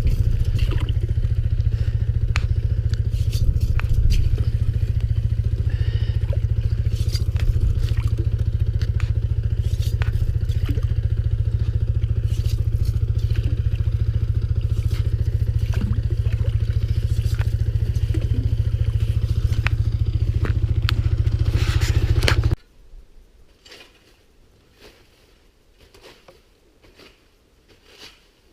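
Small gasoline engine running steadily at a constant speed, with light scraping and crunching over it. It cuts off suddenly about 22 seconds in, leaving only faint clicks and rustling.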